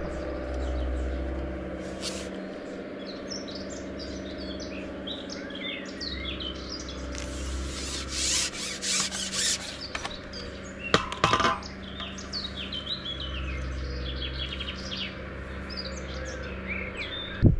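Birds chirping and singing with many short calls, over a faint low steady hum. About halfway through come a few short rustles and knocks.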